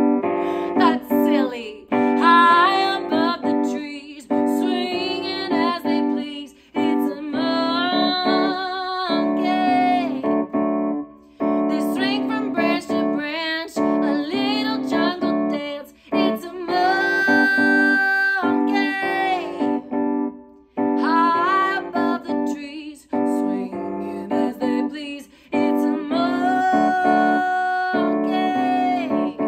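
Music: piano chords with a woman singing a melody over them, her notes gliding and wavering, in short phrases with brief pauses between.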